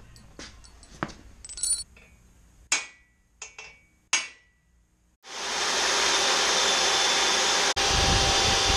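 A handful of sharp hammer taps and metallic clinks. Then, about five seconds in, a corded electric hand drill starts and runs steadily as it bores into the top of a tube, cutting out for an instant once near the end.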